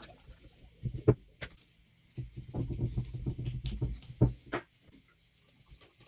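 Work on an antique hand-cranked grinder: a couple of sharp knocks, and in the middle a rough, rattling stretch of about two and a half seconds that ends with another knock.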